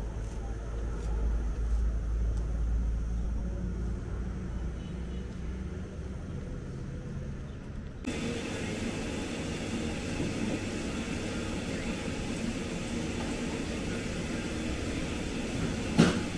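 A steady low outdoor rumble. About halfway through, it cuts abruptly to café room noise around an espresso counter, with a sharp knock near the end.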